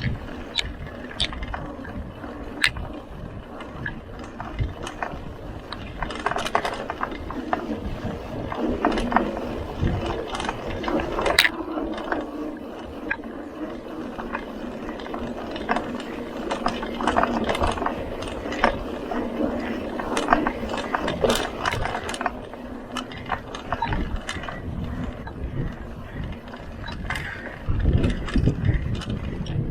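Mountain bike's rear freewheel hub ratcheting as the bike coasts, a run of uneven clicks over a low rumble.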